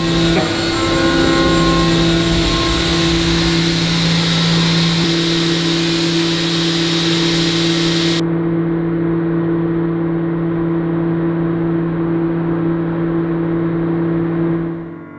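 A steady, engine-like mechanical drone with a low hum; its high end cuts off abruptly about eight seconds in.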